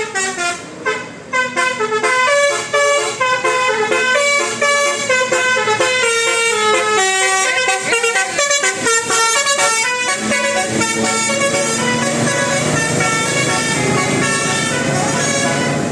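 Bus 'telolet' musical horn (Telolet Basuri type) playing a fast tune of stepping notes for about the first ten seconds, then sounding steadier held notes to the end.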